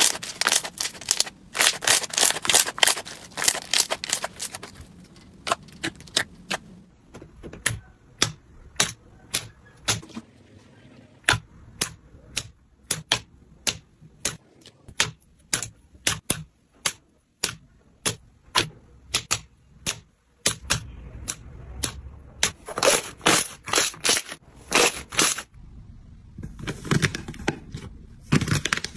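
Slime being pressed and worked by hand, giving a string of sharp clicking pops as trapped air bursts: a fast run of clicks at first, then single pops about one or two a second, then quick clusters again near the end.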